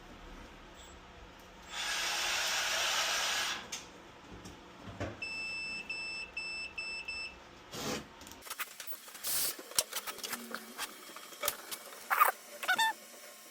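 An electronic beeper sounds about five short beeps in quick succession, each a single steady high pitch. Before it comes a brief hiss-like rush of noise, and scattered clicks and knocks follow.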